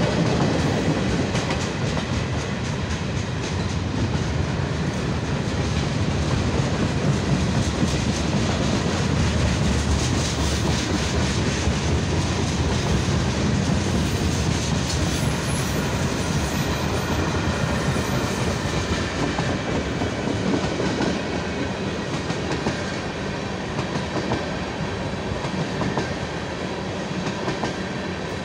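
Freight train's cars, loaded lumber flatcars and then tank cars, rolling past with a steady rumble and the clickety-clack of steel wheels over rail joints. A faint high wheel squeal rises about halfway through, and the sound eases slightly toward the end.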